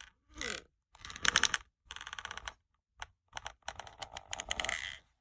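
Paper pages of a pop-up book being handled and turned: a run of irregular rustles and crisp clicks of card that stops about five seconds in.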